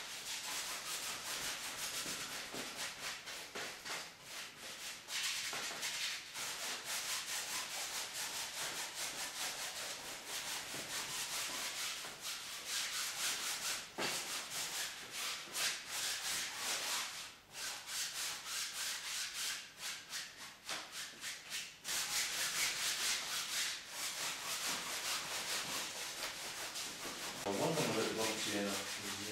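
Paintbrush scrubbing burnt sienna oil paint across a stretched canvas in quick back-and-forth strokes, a continuous scratchy rasp with a couple of brief pauses.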